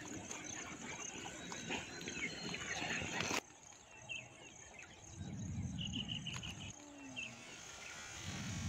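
Potato slices deep-frying in hot oil, a steady sizzle that cuts off suddenly about a third of the way in. After it, quieter outdoor background with small birds chirping in short rapid runs, twice.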